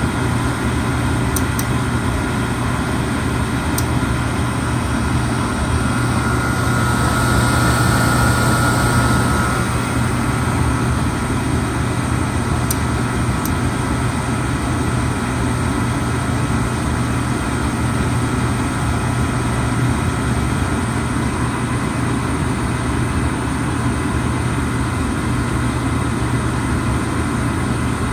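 Oil furnace burner running: a steady low hum and rushing, swelling slightly for a couple of seconds about a quarter of the way in, with a few faint ticks.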